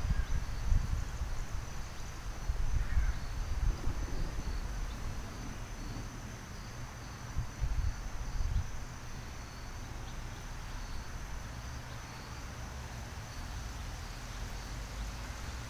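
Outdoor ambience: insects chirping steadily in a high, even trill with a faint pulsing, over an uneven low rumble of wind on the microphone.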